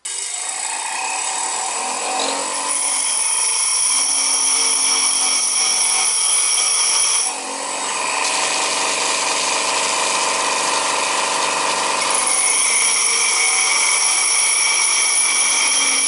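Bench grinder running while a steel chisel is held against its spinning wheel, grinding: the chisel's edge is being sharpened. The motor starts suddenly, and the grinding has a high-pitched ring in two long spells, with a brief dip in level about seven seconds in.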